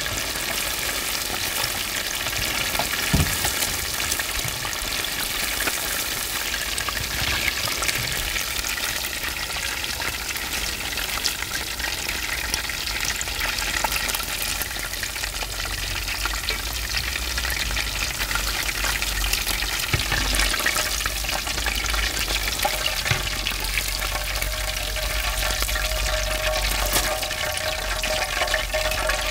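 Perilla-leaf battered chicken pieces sizzling and crackling steadily as they deep-fry in hot oil in a cast-iron cauldron, while a wire-mesh skimmer stirs and scoops them out with a few light knocks against the pot.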